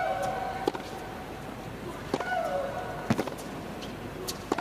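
Tennis rally: sharp strikes of racket on ball about every second, and three times a player lets out a long, high shriek that holds and then falls in pitch as she hits, at the start, about two seconds in, and at the end.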